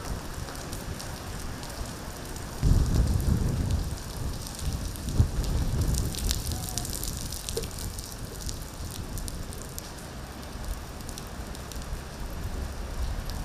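Steady rain falling on hard surfaces, with many separate drop ticks heard through it. A louder low rumble comes in suddenly about three seconds in and dies away by about six and a half seconds.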